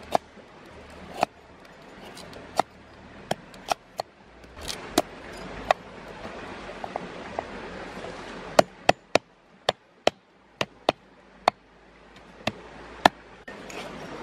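Large knife chopping ginger, garlic and lemongrass on a round wooden chopping board: sharp, irregular strikes, with a quicker run of chops a little past halfway.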